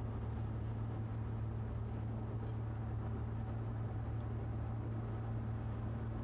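Steady engine and road noise inside a car cruising on a highway: a low, even drone with a constant hum.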